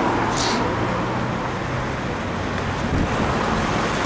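Street traffic noise with a vehicle engine running steadily, and a short hiss about half a second in.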